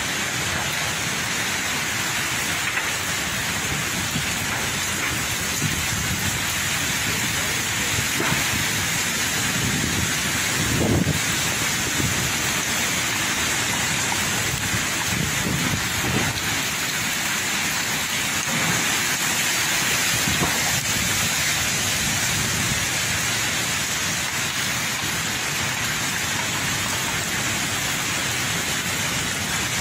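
Heavy typhoon rain pouring steadily, with a few low gusts of wind buffeting the microphone around the middle.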